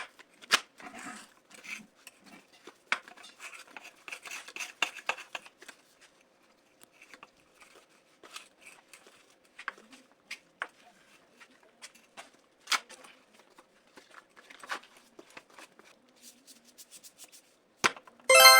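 Irregular clicks, taps and short scrapes of hand work with tools and PVC pipe parts. A bright ringing chime sets in just before the end.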